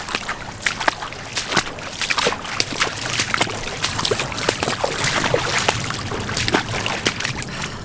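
Footsteps wading through floodwater standing over grass: irregular splashing and sloshing with each step.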